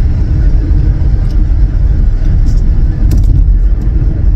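Steady low road-and-engine rumble heard inside a moving car's cabin.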